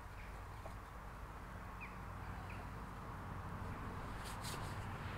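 Small wood fire burning in a stainless folding stick stove, a steady low rushing that slowly grows louder, with a few sharp clicks about four seconds in.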